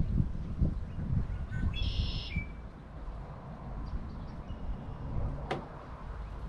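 A short high bird call about two seconds in, over a low rumbling noise with soft thumps. A single sharp click comes near the end.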